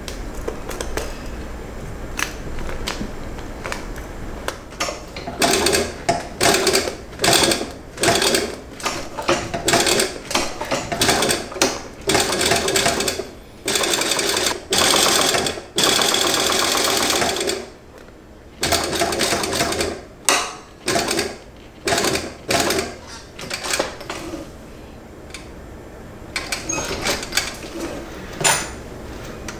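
Unicorn cylinder-bed industrial sewing machine stitching seams in clear PVC vinyl, running in many short stop-start bursts from about five seconds in, with longer runs in the middle.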